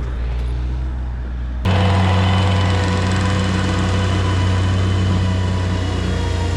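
Engine of a compact earthmoving machine running steadily; about a second and a half in, the sound changes abruptly to a louder, steady engine hum.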